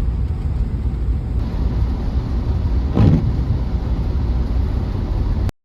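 Van driving, a steady low road and engine rumble with one bump about three seconds in. The sound cuts off suddenly near the end.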